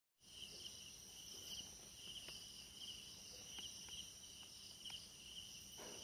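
Faint chorus of crickets chirping steadily in a high, pulsing trill, with a few soft clicks now and then.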